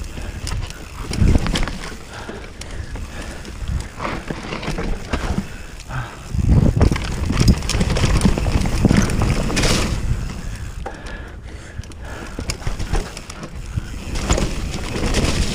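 Mountain bike descending a rough trail: tyres rumbling over dirt and rocks, with the bike clattering and knocking over bumps, heaviest through the middle.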